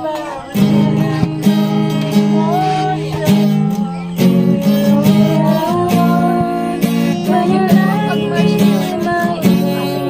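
Music with a strummed acoustic guitar and a singing voice.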